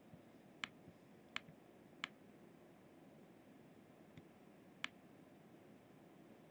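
Near silence with about five faint, sharp clicks scattered through the first five seconds: taps from handwriting on a digital drawing surface.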